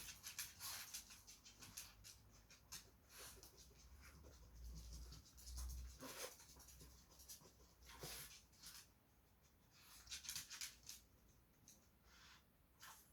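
Faint, irregular clicks and short scratchy scrapes in a quiet room, as of dogs walking about with their claws on a hard floor.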